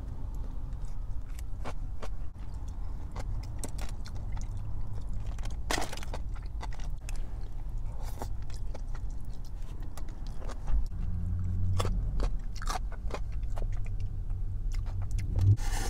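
Close-up eating sounds: biting into and chewing crispy Korean fried chicken, with irregular sharp crunches and crackles, over a steady low hum.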